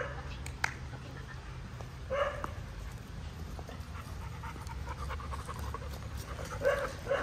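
Dogs panting while they play off-leash, with a couple of short barks, one about two seconds in and another near the end.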